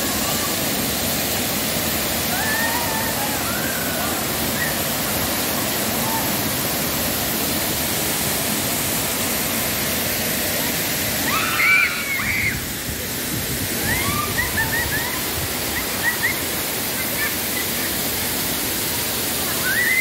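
Waterfall pouring into a rock pool: a steady, constant rush of water. Voices of people bathing call out over it now and then, loudest about twelve seconds in.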